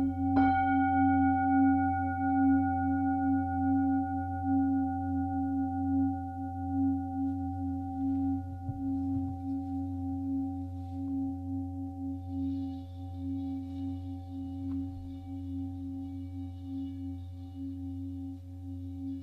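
Slow ambient drone music: a steady low hum under long held tones, with a struck, bell-like note about half a second in that rings on and slowly fades.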